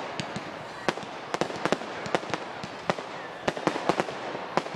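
Fireworks display going off: an uneven, rapid series of sharp bangs and cracks, several a second, over a steady hiss.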